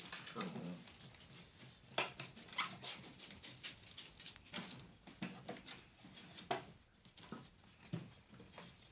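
Australian silky terrier puppies and an adult silky scrambling in a plywood whelping box: irregular claw scratches, taps and scuffles on the wood, with a few sharper knocks.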